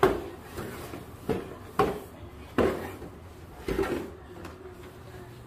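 Cardboard soda carton knocking and scraping along a tile floor, pushed by a dog walking with its head stuck inside it: a string of knocks, roughly one every second, the loudest at the start.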